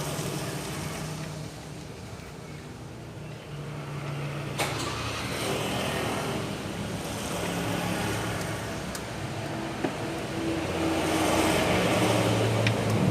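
A motor vehicle engine running, its pitch wandering up and down, with a few sharp clicks; it grows louder near the end.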